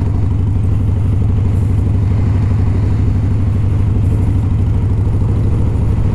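Harley-Davidson Softail FXST's air-cooled V-twin engine running steadily as the motorcycle rides along a dirt road, with a low, even pulse.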